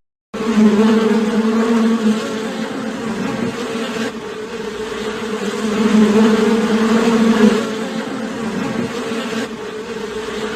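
Flying insect buzzing: a steady, low drone that swells louder around the middle.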